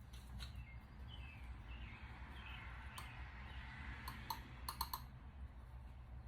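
Faint clicks and light handling noise as PVC primer is daubed onto the pipe, over a low steady hum. A quick cluster of clicks comes near the end, and a few faint high chirps sound early on.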